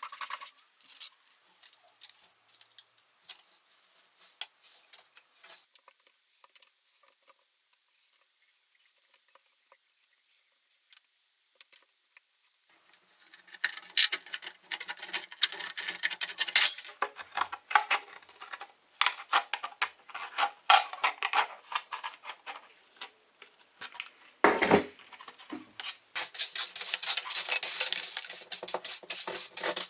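Hand tools working a small workpiece: scattered light clicks, then from about halfway busy clinking and scraping, with one sharp knock near the end.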